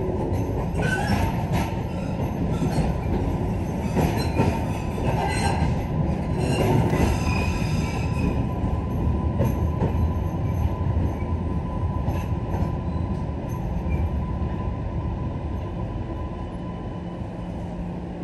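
MBTA Green Line light-rail train running, heard from inside the car: a steady low rumble with high wheel squeals and clatter through the first half. The noise eases as the train slows alongside the station platform.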